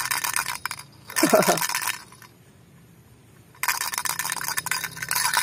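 Plastic chick-shaped toy rattle being shaken, giving a fast clinking rattle. It stops for about a second and a half midway, then starts again.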